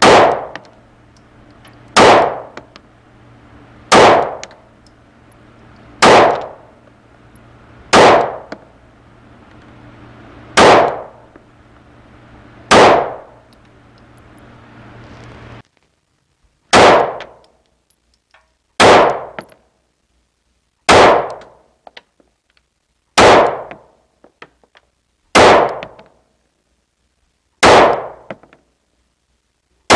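Sig Sauer P365 pistol fired slowly, about one shot every two seconds, some thirteen shots with a pause of about four seconds near the middle; each shot rings off the walls of an indoor range.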